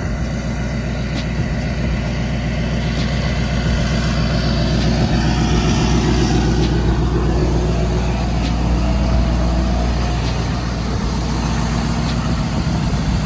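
Ford 6.7 Power Stroke V8 turbodiesel idling steadily after a cold start in about 10-degree cold.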